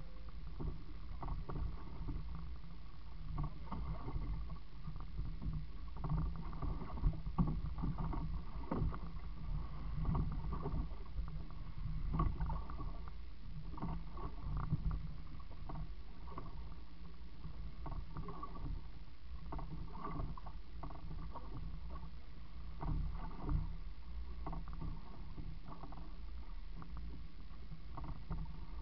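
Water sloshing and slapping against the hull of a small open fishing boat, a steady low wash with irregular knocks and splashes throughout.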